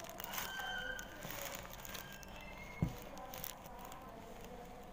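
Faint rustles and clicks of equipment being handled, with one sharp knock about three seconds in.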